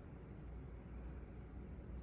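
Quiet room tone with a low steady hum, and one faint, brief soft hiss about a second in.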